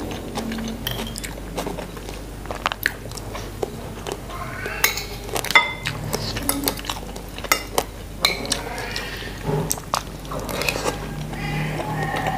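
Metal spoon and fork clinking and scraping against a ceramic plate while mixing rice, with close-up chewing and mouth sounds of eating.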